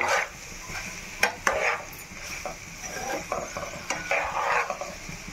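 A metal spatula stirring boiled eggs and fried onions in a metal frying pan, scraping and giving several sharp clinks against the pan, over a light sizzle of frying.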